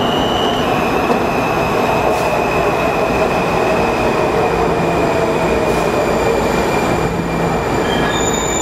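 WMATA Metro train arriving and braking to a stop: a loud, steady rumble of wheels and motors with a high whine that slowly falls in pitch as the train slows. Higher tones come in near the end as it comes to rest.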